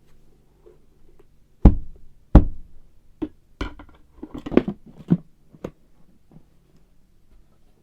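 A series of knocks and thumps from hard objects being handled: two loud ones about two seconds in, then a quicker cluster of lighter knocks.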